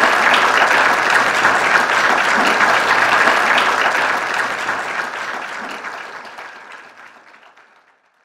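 Audience applauding at the end of a lecture: steady dense clapping that fades away over the last few seconds.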